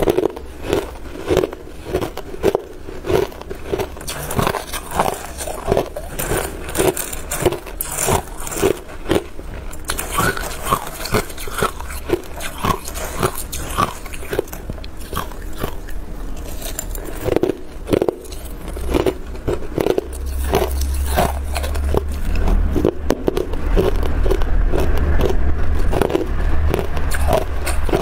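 Small chunks of hard clear ice crunched between the teeth in a steady rhythm of bites. In the last several seconds a metal spoon scrapes and scoops through crushed ice in a bowl over a continuous low rumble.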